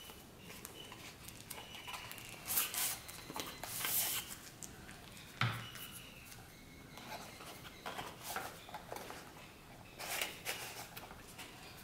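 Cardboard packaging and tissue paper being handled: short bursts of rustling and scraping as the box is turned and its flap opened. There is a single sharp thump a little over five seconds in.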